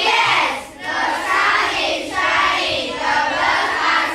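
A group of children's voices chanting together in unison, in about four short loud phrases.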